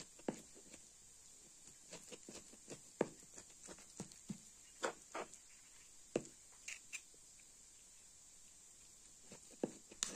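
Irregular light taps and clicks, a couple of dozen in all, mostly in the first seven seconds, with a few more near the end, over a faint steady hiss.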